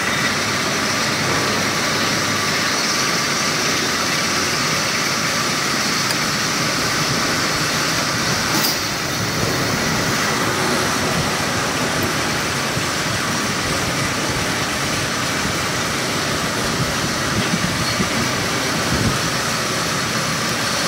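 Belt-driven automatic lathe running and cutting metal, with cutting oil streaming over the tooling: a steady, loud mechanical noise with no pauses.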